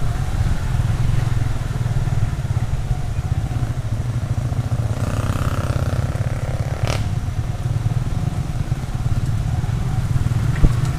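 Small motorcycle engine running steadily while riding, a dense low rumble. There is a faint click about seven seconds in and a short sharp knock near the end.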